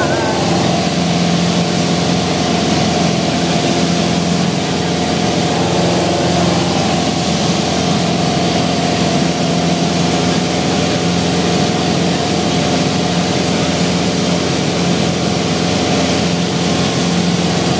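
Piper Warrior's four-cylinder Lycoming engine and propeller droning steadily in flight, heard from inside the cockpit, the pitch shifting slightly just at the start.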